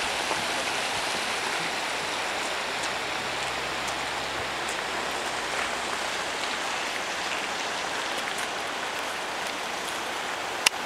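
Steady rushing of running water, even and unbroken, with one sharp click near the end.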